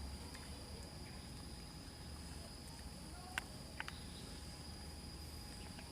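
Crickets or other insects trilling steadily in a continuous high-pitched drone over a low outdoor rumble. Two short sharp clicks come about three and a half seconds in.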